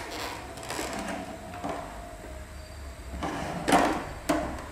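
Handling knocks on the juicer and its jug: a knock near the end, then a sharp click half a second later, over a low murmur.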